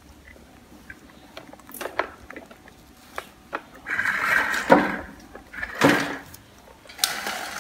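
Scattered light clicks and knocks of hands on a plastic baby-walker toy tray, becoming louder handling noise with a few sharper thumps in the second half.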